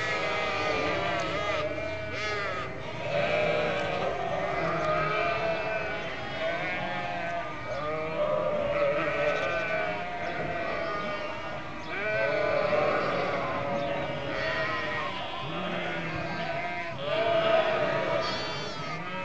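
A large flock of sheep bleating continuously, many calls of different pitches overlapping one another.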